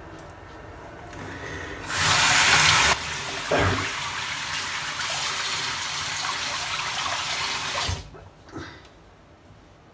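Tap water running into a bathroom sink. It starts about two seconds in with a loud gush for a second, then runs steadily until it is turned off about eight seconds in.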